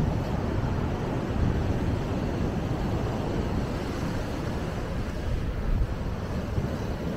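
Wind buffeting the microphone: a steady, fluttering low rumble with no distinct events.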